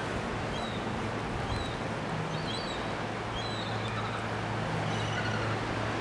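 Steady outdoor background noise with a low, even hum that grows a little stronger in the second half, and faint, short high chirps now and then.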